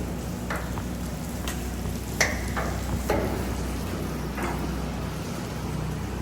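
Pressure-washing water hissing and splattering over a steady machine hum, with scattered sharp clicks and knocks, the loudest a little after two seconds in.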